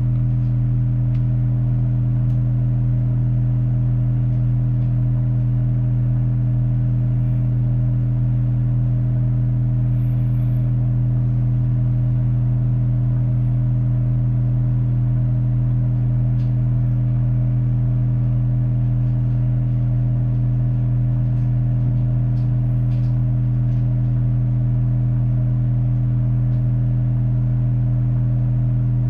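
Steady low-pitched test tone with a few higher overtones, played through an AudioArt 200ms two-channel amplifier into a speaker. The tone holds unchanged, with no speech or music over it.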